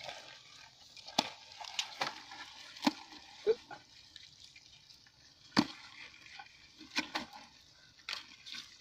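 Scattered sharp clicks and knocks, about ten over several seconds, as live rice-field crabs are picked out of a trap hole and dropped into a plastic bucket of crabs, their shells clattering against each other and the bucket.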